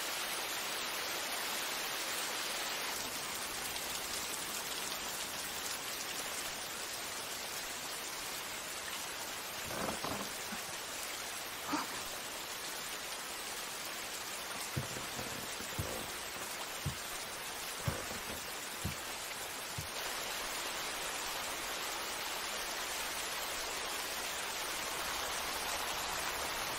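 Steady rain falling and pattering on the ground, with a few faint taps through the middle.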